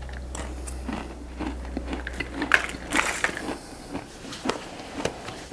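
A mouthful of sunflower seeds being crunched and chewed: irregular crisp crunches, loudest about two and a half to three seconds in.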